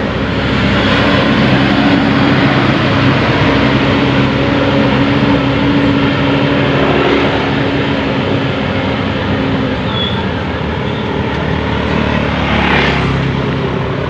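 Coach bus and a car passing close by, the bus's diesel engine making a steady low drone over tyre and traffic noise that fades after about ten seconds.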